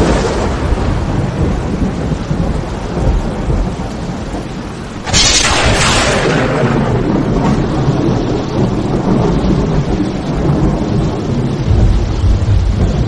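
Thunder: a sharp crack about five seconds in that rolls into a long low rumble, over steady rain.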